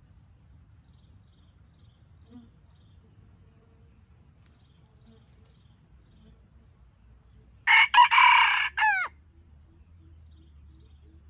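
Red junglefowl rooster crowing once, a short crow of about a second and a half in three parts, the last note falling and ending abruptly.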